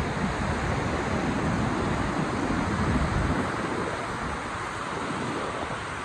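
Ocean surf washing steadily, with wind buffeting the microphone that dies down a little past halfway through.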